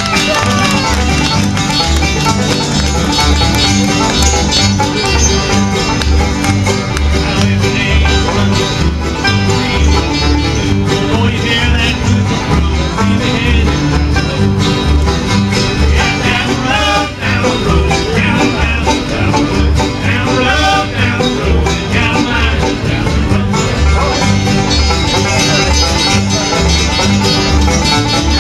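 A bluegrass band playing live, with banjo and guitar over a steady bass beat.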